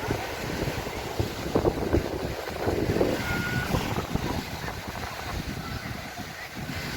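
Wind buffeting the microphone in uneven gusts, with a brief high-pitched tone a little over three seconds in.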